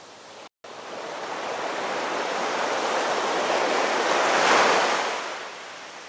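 Heavy surf breaking on rocks and concrete tetrapods. After a split-second gap near the start, a wave surges in, building to a crash about four and a half seconds in, then falls back.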